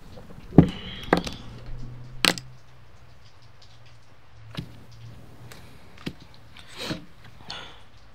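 A handful of sharp knocks and clicks from things handled on a card table, the loudest a thud about half a second in, with lighter taps spread through the rest, over a low steady hum.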